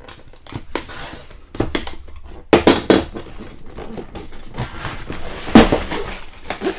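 Cardboard LEGO set box being opened by hand: a small cutter scraping through the seal tabs, then the box handled and tipped over, with a run of knocks and rattles from the cardboard and the bagged parts inside. The loudest knock comes about five and a half seconds in.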